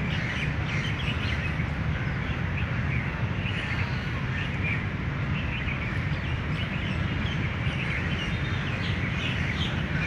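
Many birds chirping and twittering in the trees, dense short calls throughout, over a steady low rumble.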